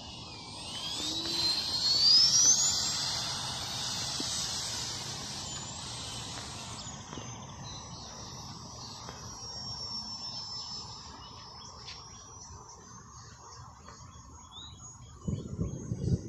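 Electric ducted fan of a Freewing F-22 64 mm RC jet on a 6S battery whining in flight. The whine rises in pitch and loudness to a peak about two seconds in, then eases into a thinner high whine that slowly fades. A low rumble comes in near the end.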